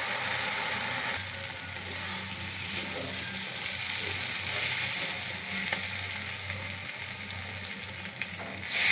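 Food frying in hot oil in a pan, a steady sizzle with a few faint clicks. Near the end the sizzle suddenly gets much louder.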